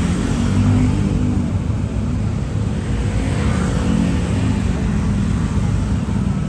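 Road traffic: vehicle engines running in a steady low rumble.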